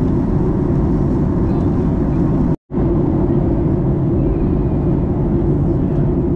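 Steady jet airliner cabin noise: the low engine and airflow rumble of a Ryanair Boeing 737, heard from inside the cabin. Near the middle it cuts out to a brief moment of silence, then resumes unchanged.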